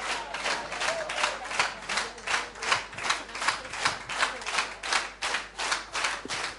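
Audience clapping together in rhythm, about three claps a second.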